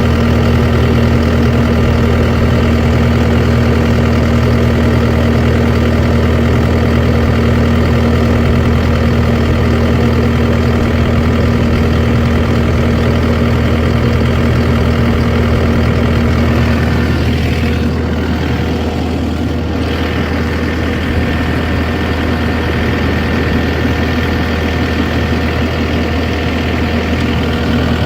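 Heavy vehicle engine idling steadily, with a slight drop in level about two-thirds of the way through.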